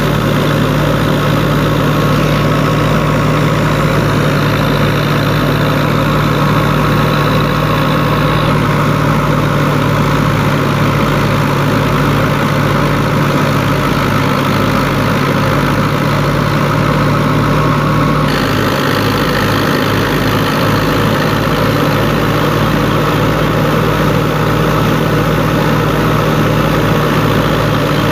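Fiat 640's four-cylinder diesel engine running steadily under heavy load while it powers a wheat thresher, mixed with the thresher's drum running. The engine is labouring on damp wheat and blowing black smoke.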